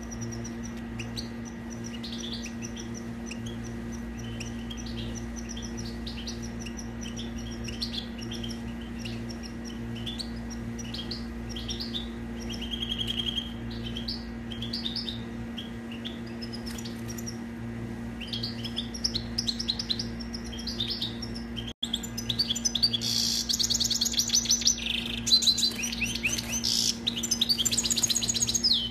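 European goldfinch singing: a long run of quick twittering notes and short trills, louder and denser from about two-thirds of the way in, over a steady low hum.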